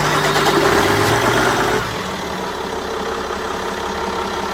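Yanmar 260 hp marine diesel just started from cold, running loud and rough at first, then settling abruptly about two seconds in to a steady, smooth idle.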